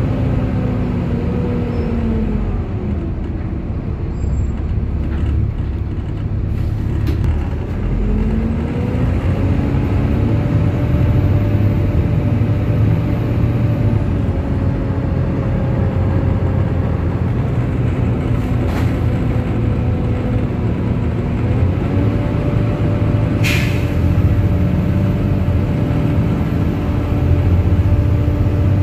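Volvo B7TL double-decker bus's six-cylinder diesel running with its cooling fan whining over a low rumble. The pitch falls in the first few seconds, holds low, climbs back about eight seconds in, and climbs again past twenty seconds, with one sharp click shortly after.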